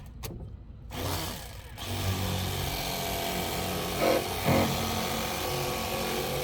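Electric fillet knife running as it cuts through a crappie, a steady motorized buzz that starts about two seconds in, with a couple of brief louder scrapes about four seconds in.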